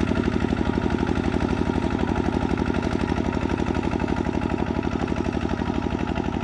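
Kubota RT140 single-cylinder diesel engine running steadily with an even, rapid chugging beat.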